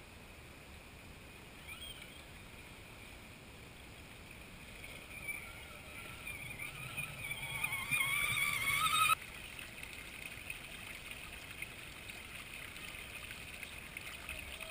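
Shallow creek burbling over stones close to the microphone, with an Axial Honcho radio-controlled scale truck wading through the water right beside it. The truck's sound builds up and cuts off suddenly about nine seconds in, leaving the steady burble of the stream.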